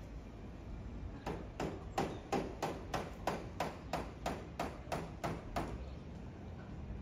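Repeated hammer blows on the masonry of a building being demolished, about three a second. They start about a second in and stop about a second before the end.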